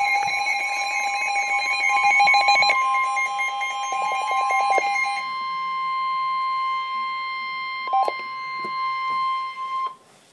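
Emergency Alert System attention signal: a loud, steady two-tone alarm. The lower tone drops out about five seconds in, and the higher tone carries on alone until it cuts off suddenly near the end.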